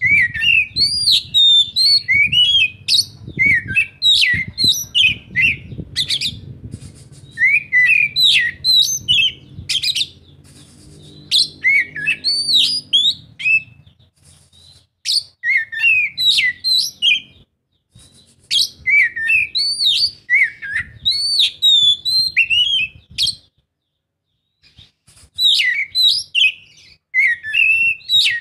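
Oriental magpie-robin singing: loud, varied phrases of quick whistled and sweeping notes, broken by short pauses and a longer pause about 24 seconds in.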